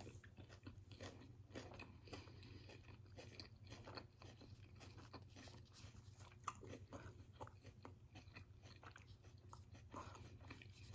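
Faint, close-up chewing and crunching of a mouthful of chicken wrap, a scatter of small soft crackles.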